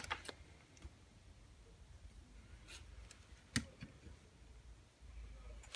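Faint clicks and rustling from hands working with small tools and parts, with one sharper click about three and a half seconds in.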